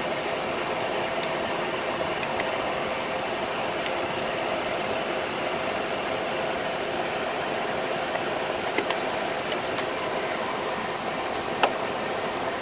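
Ford Fiesta's electric radiator cooling fan running steadily with a faint hum, though the engine is cold: a run-on fault the owner traces to a faulty fan relay. A few faint clicks as the plastic relay box and relays are handled.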